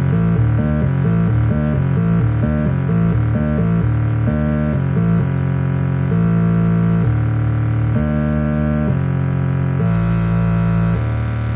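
Make Noise 0-Coast semi-modular synthesizer playing an arpeggiated sequence fed over MIDI by a Midicake ARP arpeggiator. Quick stepping notes slow, about five seconds in, to longer held notes of roughly a second each.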